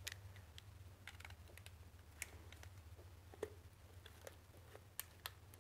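Faint, scattered light ticks and clicks of a scraper blade being worked into the liquid-gasket seal between an engine's lower and upper oil pans, over a low steady hum.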